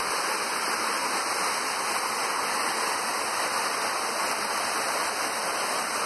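Small waterfall: water tumbling steadily over rocks in a continuous even rush.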